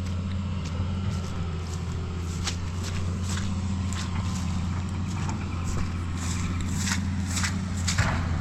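Backhoe's diesel engine running steadily at a low hum, with irregular clicks and knocks over it, the loudest near the end.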